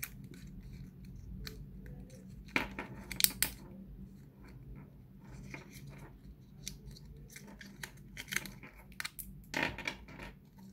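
Apple EarPods being taken out of their plastic packaging: rustling and crinkling with scattered clicks and snaps, loudest in short clusters about three seconds in and again near the end.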